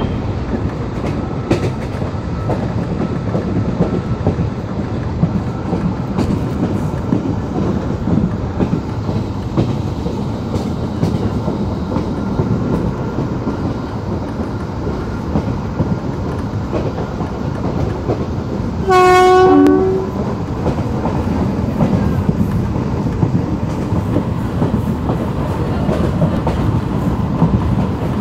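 Passenger train running at speed, heard from an open coach door: a steady rumble of wheels on rail and the rush of air. About two-thirds of the way in, the locomotive sounds its horn once, a single-tone blast lasting about a second.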